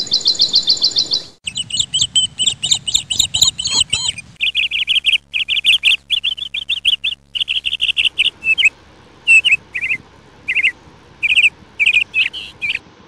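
Small birds chirping in quick runs of high repeated notes. The chirping changes abruptly about a second and a half in and again around four seconds. From about eight seconds the chirps come in shorter, separate calls.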